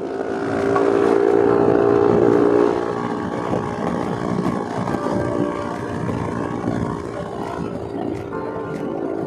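Yamaha NMAX 155 scooter's single-cylinder engine running steadily under way, with wind rushing over the handlebar-mounted microphone; the sound swells for a couple of seconds about a second in, then settles.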